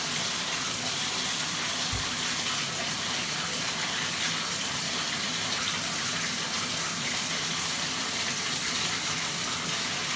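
Bathtub faucet running, water pouring steadily into the tub as it fills for a bath.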